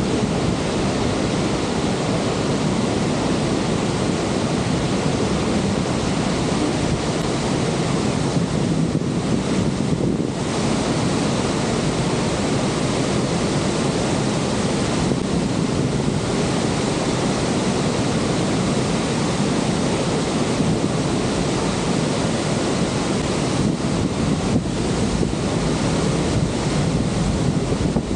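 Steady, loud rush of the Niagara River's water at the Horseshoe Falls, with wind noise on the microphone.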